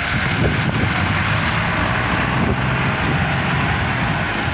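Diesel engines of two farm tractors running hard and steady under load, a Massey Ferguson 385 towing an Al-Ghazi tractor out of deep mud on a chain.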